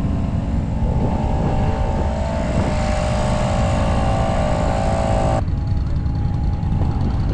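A small engine running steadily with a low rumble. From about a second in, a higher steady hum with a hiss on top runs with it and cuts off suddenly a little past five seconds.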